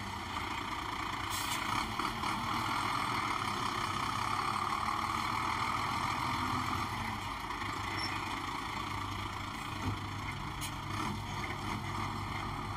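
Heavy fire engines leaving the factory: a steady engine rumble with road noise, and a couple of faint clicks.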